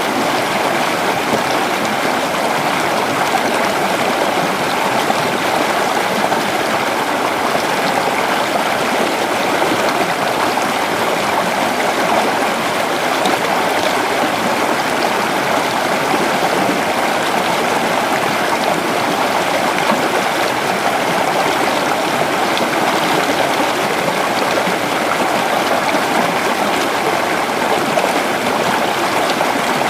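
A creek or small river running over stones, a steady unbroken rush and babble of flowing water.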